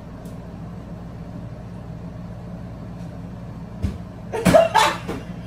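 Steady low hum of a spinning ceiling fan. There is a single knock a little under four seconds in, then two short, loud bursts of a person's voice soon after.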